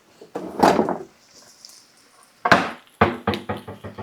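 Kitchen handling noises: a brief rustle, then a sharp knock about two and a half seconds in, followed by a quick run of small clicks and taps, as dishes and utensils are handled.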